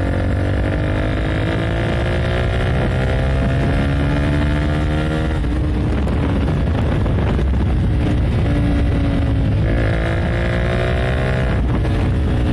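Honda CBR150R's single-cylinder four-stroke engine pulling hard as the bike is ridden, its pitch climbing and breaking off at gear changes about five and ten seconds in. Wind rushes over the rider's headset microphone.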